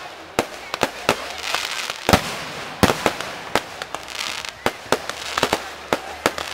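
Fireworks display: a fast, irregular series of sharp bangs from bursting shells, with spells of hiss and crackle between them. The loudest bang comes about two seconds in.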